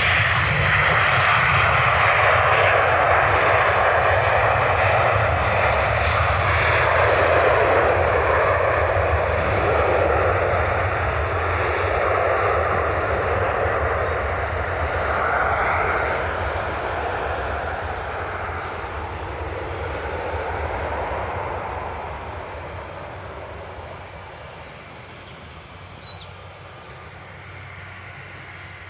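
Jet airliner's engines, a loud steady rush that holds for about fifteen seconds and then fades as the aircraft moves away.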